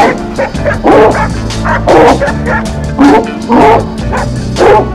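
A hunting dog barking repeatedly, loud and sharp, about once a second, as it holds a wild pig at bay. Background music plays underneath.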